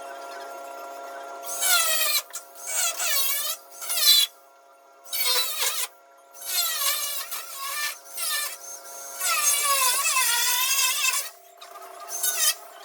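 Angle grinder run in about seven short bursts on sheet steel, its whine dipping in pitch and recovering within each burst.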